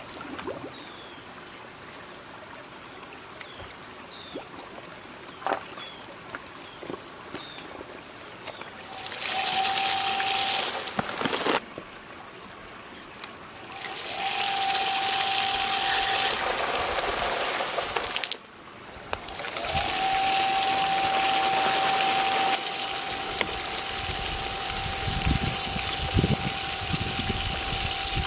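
A restored water pump sitting in a stream comes on in three stretches, the last running steadily: a steady motor whine that rises in pitch as it starts, over the loud hiss of a jet of water spraying high into the air. Before the pump starts, a shallow stream trickles and a small bird chirps.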